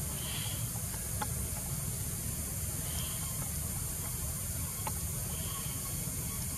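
Steady outdoor ambience: a high, even hiss over a low rumble, with a few faint clicks and three short, faint high-pitched notes spread through it.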